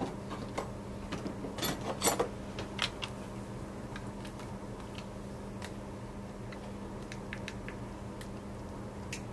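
Light clicks and taps from handling a lit ear-scope, its cable and display, with a brief cluster of louder clicks and rustles about two seconds in, over a steady low hum.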